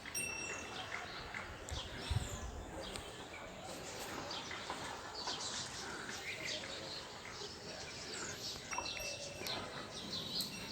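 Small birds chirping and twittering, many short quick calls overlapping, with a soft thump about two seconds in.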